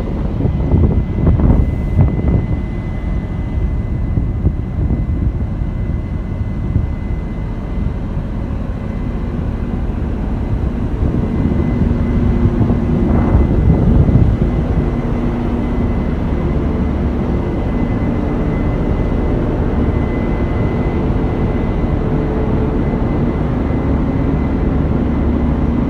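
Case IH Axial-Flow 8250 combine harvester running steadily: a heavy, continuous machine drone with a thin, steady high whine over it, swelling louder briefly about a second in and again about halfway through.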